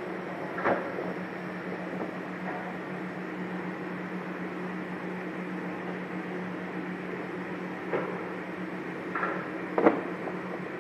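GK 1200AC carton folder-gluer running with a steady hum as folded cartons shingle out onto its delivery belt. A few sharp cardboard clacks come from cartons being picked up and handled: one about a second in and a cluster near the end, the last the loudest.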